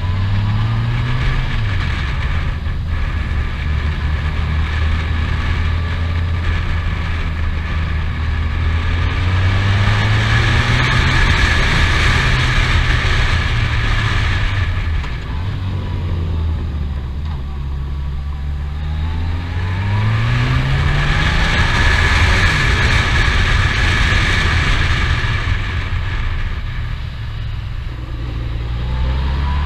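Touring motorcycle engine running under way, rising in pitch several times as it accelerates through the bends. Wind rushes over the microphone and swells loud at the faster stretches, about ten and twenty seconds in.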